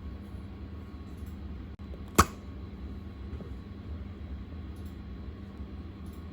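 A single sharp pop from the slime about two seconds in, over a steady low hum.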